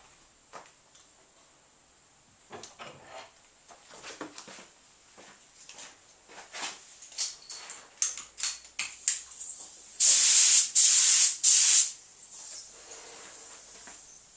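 Paint being sprayed onto a van panel in three short, loud hissing bursts near the end, after several seconds of small clicks and knocks from handling the equipment.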